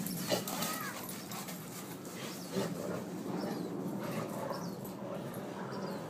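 Two dogs play-wrestling, with a few short high-pitched vocal sounds from them.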